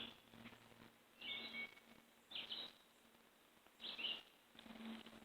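A bird calling faintly outdoors, three short high calls a second or so apart.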